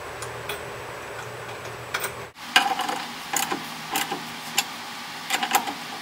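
Socket ratchet tightening a lock nut on a bolt, its pawl clicking in short irregular runs from about two and a half seconds in. A low steady hum comes before the clicking.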